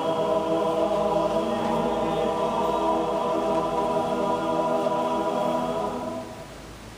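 Mixed choir of women's and men's voices singing long held notes, which die away about six seconds in, leaving a faint room hiss.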